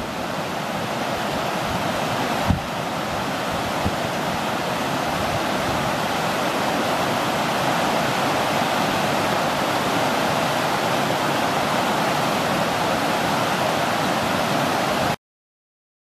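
Whitewater mountain stream rushing over rocks, a steady, even wash of water noise. Two brief low thumps come in the first few seconds, and the sound cuts off abruptly near the end.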